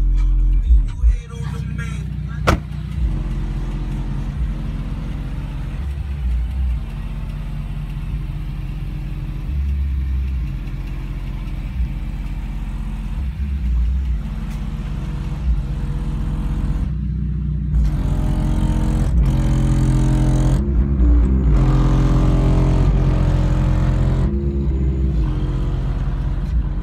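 Music playing through two MTX Terminator 12-inch subwoofers in a Dodge Charger: deep, repeated bass hits with little treble. It is heard first in the cabin and then from outside the car.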